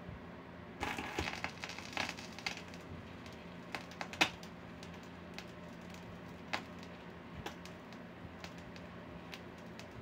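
Surface noise of a vinyl record under the new stylus of a Radson Quantum T-1000 turntable: a burst of crackling about a second in, then scattered clicks and pops, with a sharp pop about four seconds in, over a low steady hum.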